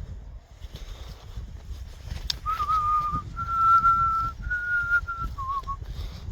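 A person whistling four held notes, each about a second long, starting a little over two seconds in, just after a sharp click. A low rumble runs underneath.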